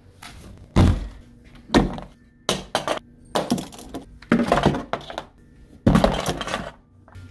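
Supplies dropped one after another into an empty cardboard box: binoculars, a marker, a tape dispenser, a hot glue gun and a roll of duct tape. They make a string of thuds, several of them close together.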